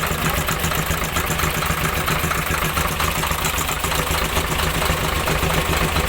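Isuzu 6HK1 six-cylinder diesel engine turning over steadily during an injector back-leak check, where the injectors are found to have high back-leak.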